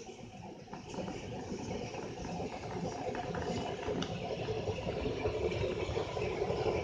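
Shay geared steam locomotive moving slowly past, its geared drive clattering while steam hisses from the open cylinder cocks, growing louder as it comes closer.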